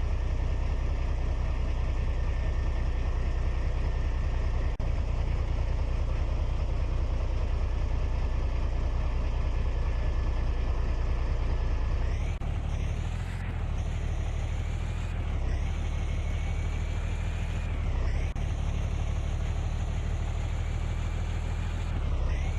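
Remote-control truck's drive running steadily under a low engine-like hum, with a high motor whine that rises and falls several times over the second half as the throttle changes.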